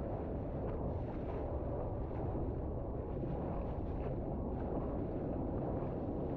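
Wind buffeting the microphone with rushing water, a steady low rumble.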